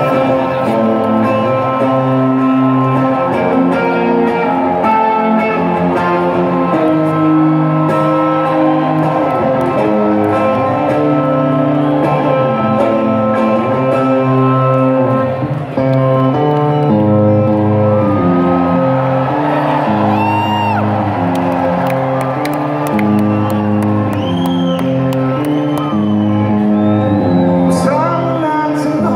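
Live band in a large hall playing a guitar-led song, steady strummed chords changing every second or so over a low bass line. Whistles and cheers from the audience rise over the music in the second half.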